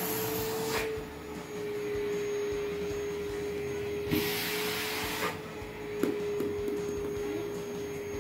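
Vacuum cleaner running with a steady, even hum while picking up plastic balls, with a short louder rush of air at the start and another about four seconds in.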